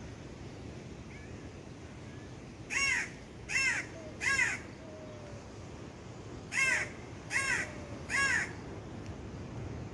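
A bird calling in two runs of three short calls, each under half a second, with a pause of about two seconds between the runs. A steady hiss lies underneath.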